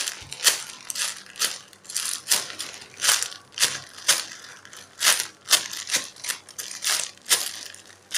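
Clear plastic bag crinkling and crackling as the yellow cake-roll squishy foam toy inside it is squeezed by hand, in quick irregular crackles about two a second.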